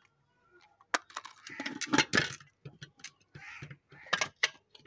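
A matchbox handled and matches struck against it to light a wood fire: a run of sharp clicks and short scrapes, loudest about two seconds in and again near the end.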